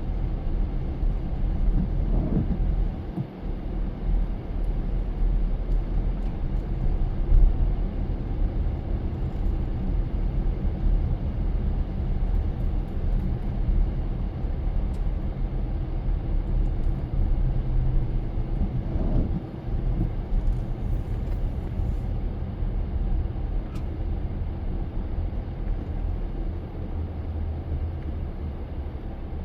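Car driving along: a steady low rumble of engine and tyres on the road, with a couple of brief swells in pitch.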